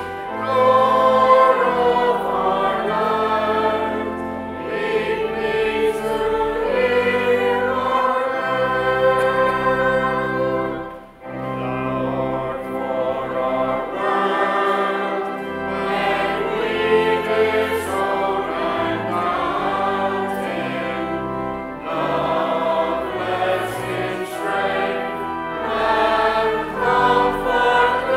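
Cathedral choir singing a hymn with pipe organ accompaniment, the organ holding sustained low notes under the voices. About eleven seconds in there is a brief break as one verse ends and the next begins.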